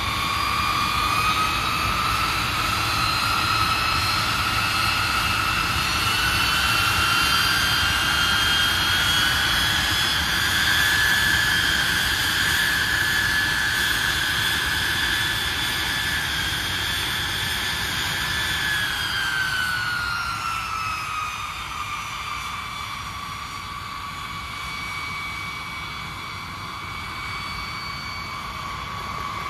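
B-52H's eight TF33 turbofan engines spooling up: a whine that climbs over about ten seconds, holds, then winds back down around twenty seconds in, over a steady jet rumble.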